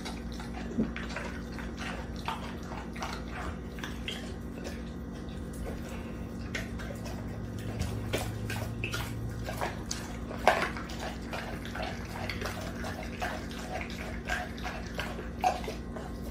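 Pit bull-type dog licking and chewing at a whole raw chicken: wet smacking and licking with many small clicks, a few of them sharper, over a steady low hum.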